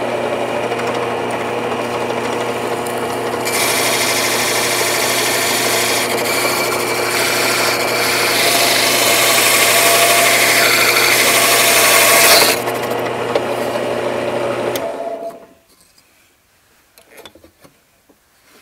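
A drill press motor running steadily with a hum. From about three seconds in to about twelve seconds a hole saw is fed down, cutting into wood with a loud rasping noise. The drill then runs free for a couple of seconds and is switched off and winds down near the end.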